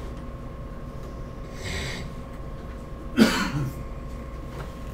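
A soft breath, then a single short cough about three seconds in, over a faint steady room hum.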